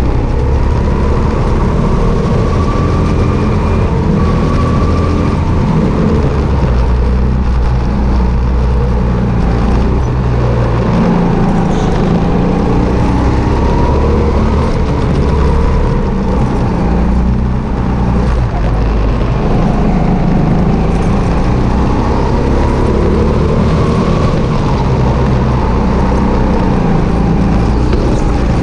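Onboard sound of a Sodi RT8 indoor rental kart's engine running at racing speed round the track. Its pitch rises and falls again and again as the driver accelerates and lifts, over a steady heavy low rumble, heard close through a camera mounted on the kart itself.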